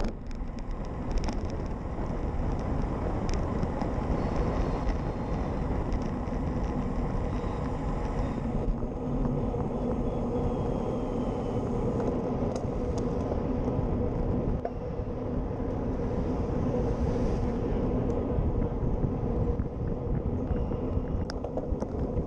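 Steady wind rush and road noise while riding a road bike: wind on the handlebar-mounted action camera's microphone and tyres running on tarmac, with a low, even hum.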